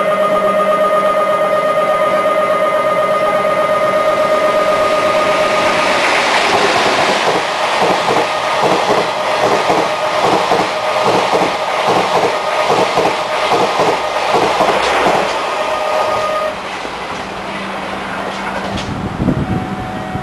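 Twilight Express sleeper train, locomotive-hauled, running through the station at speed: a rhythmic clatter of wheels over rail joints that builds about six seconds in and lasts roughly ten seconds. A steady warning tone sounds until the train has gone by, stopping suddenly.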